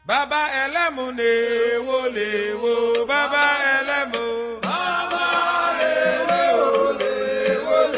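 Chanted vocal music: voices in a drawn-out, gliding chant. It starts abruptly, and a fuller passage begins about four and a half seconds in.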